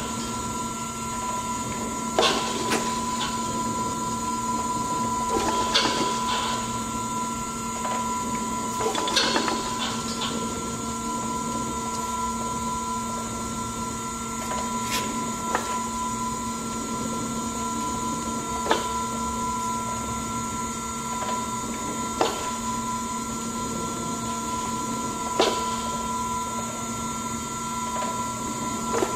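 Mark 1848 hydraulic surface grinder running with its table traversing: a steady machine hum made of several constant tones, with a sharp click or knock every three seconds or so.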